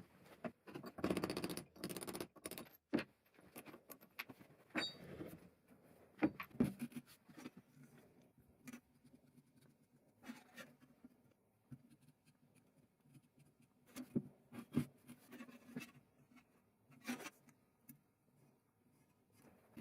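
Irregular knocks, clicks and rubbing of hard objects being handled, with quiet gaps between them, the busiest stretch about a second in.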